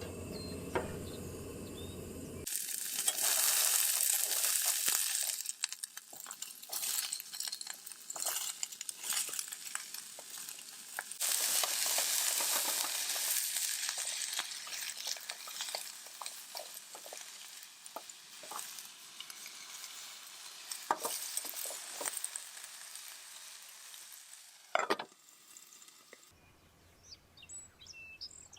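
Food sizzling and crackling in a frying pan, with occasional sharp clicks. Near the end it gives way to birds chirping.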